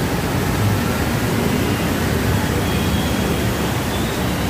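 Steady rushing noise of heavy rain and floodwater streaming over a flooded road, with a low rumble underneath.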